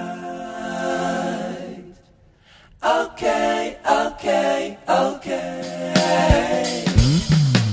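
Background music of sung vocals with little accompaniment, briefly dropping away about two seconds in and ending with a falling sweep.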